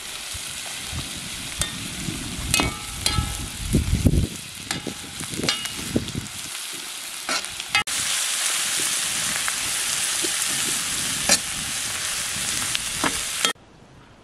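Sliced onions frying in a black cooking pot, sizzling steadily while a metal skimmer scrapes and clinks against the pot as they are stirred. The sizzle jumps louder about eight seconds in and cuts off suddenly near the end.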